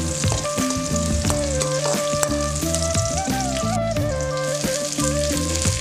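Sliced onions, dried red chillies and curry leaves sizzling in hot oil in an aluminium kadai, with chopped beans tipped into the pan about four seconds in. Background music with a simple melody and bass line plays under the sizzle.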